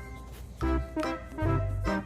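Background music: a bouncy tune of repeated keyboard-like notes over a steady bass beat.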